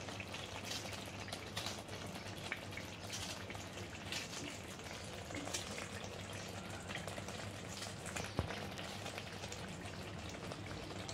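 Thick meat curry gravy simmering in a kadhai over a gas flame, bubbling and spitting with many small pops and crackles.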